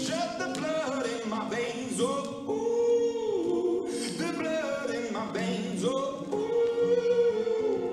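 A song with sung vocals playing as the backing music for a poi-spinning act.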